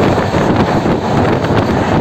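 Wind buffeting the microphone over the steady rumble of a passenger train running at speed, heard from on board.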